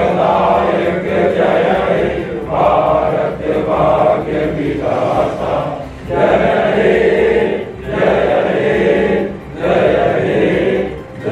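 A group of police officers chanting together in unison, phrase after phrase of a second or two with short breaks between.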